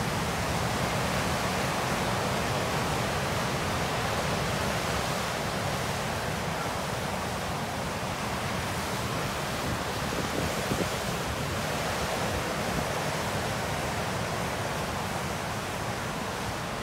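Lake Superior surf breaking on the shore: a steady, rushing wash of waves.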